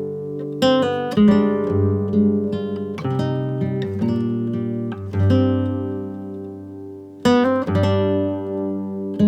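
Acoustic guitar music: plucked and strummed chords, each ringing out and fading before the next.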